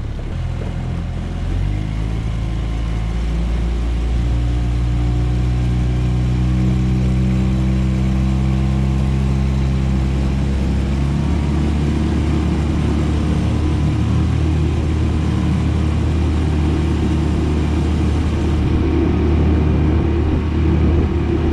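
Honda 9.9 four-stroke outboard motor pushing a jon boat, picking up speed with its pitch climbing over the first ten seconds or so, then running steadily at speed over the rush of water and wind.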